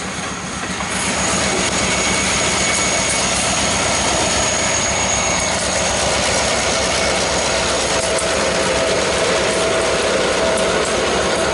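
Freight train's diesel locomotives running alongside, heard from a moving car with the window open: a steady engine drone and whine mixed with wind and road noise, getting louder about a second in.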